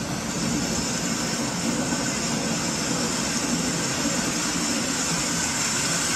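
Dance performance soundtrack played loudly through theatre speakers: a steady rushing noise with a low pulse beneath it.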